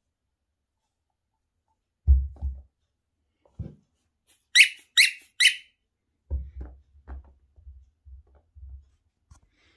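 A squeaky dog toy squeaked three times in quick succession, among soft thuds of toys being dropped onto a rug.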